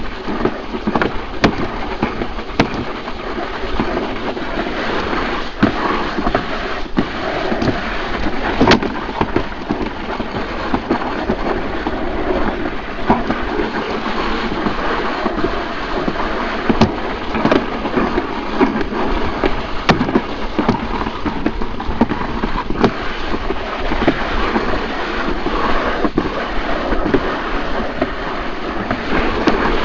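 Summer toboggan sled running down a trough-style toboggan run: a continuous loud rumble and scrape of the sled in the trough, with frequent irregular clicks and knocks.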